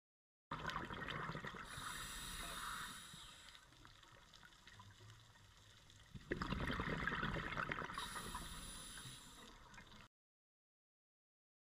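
Scuba diver breathing through a regulator underwater: two long bursts of exhaled bubbles gurgling and crackling, the second starting suddenly about six seconds in, with a quieter hiss between them.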